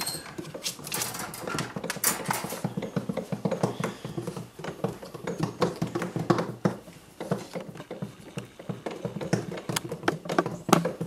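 Cavalier King Charles Spaniel puppy eating moistened kibble from a ceramic bowl: a quick, irregular run of small crunches and clicks as she chews. Near the start, the wire crate door rattles as it is shut.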